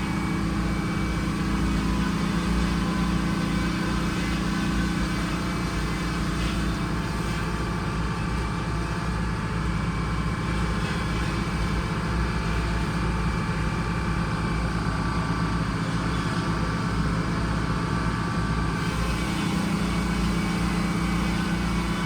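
Old bus engine powering a sawmill, running steadily; its note shifts slightly near the end.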